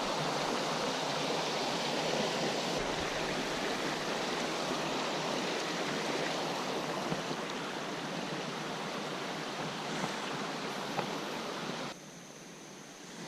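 Creek rapid: water rushing steadily over rocks, dropping abruptly to a quieter rush near the end.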